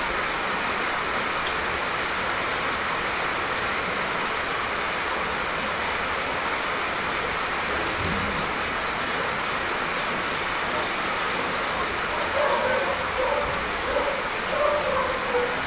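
Steady rain falling, an even hiss. From about three-quarters of the way in, a dog barks several times.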